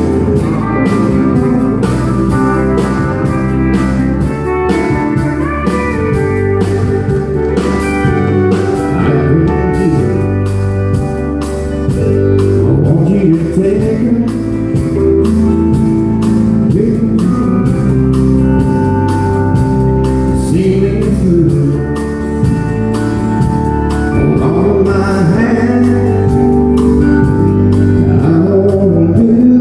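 Live country band playing a song: a man singing to a strummed acoustic guitar over drums keeping a steady beat and a bass line.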